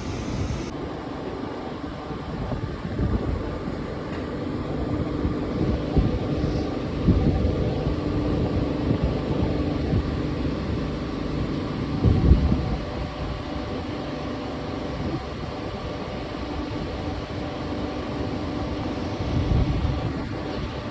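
Train running: a steady rumble with a constant hum, broken by a few louder low thumps, the biggest about twelve seconds in.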